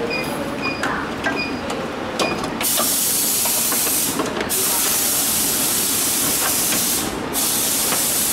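A few light clicks and short high tones, then from about two and a half seconds in a loud, steady hiss that cuts out briefly twice.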